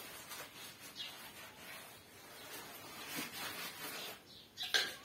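A hand smearing wet mud plaster over a clay cookstove: soft, irregular rubbing and scraping strokes, the sharpest near the end.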